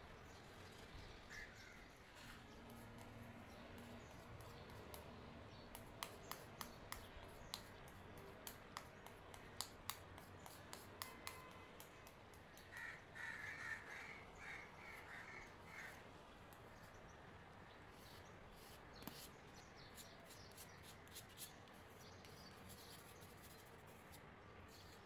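Near silence: faint room tone with a run of light clicks, and a short faint bird call a little past halfway.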